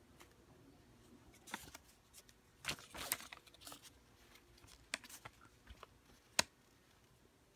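Banknotes rustling and crinkling as they are handled and turned in the fingers, in short scattered bursts, with a sharp snap of paper a little after six seconds in.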